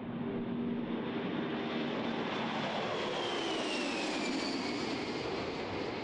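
Boeing 747 Shuttle Carrier Aircraft's four jet engines at takeoff power, a steady dense roar as it rolls and lifts off, with a high whine that falls in pitch midway as it passes and climbs away.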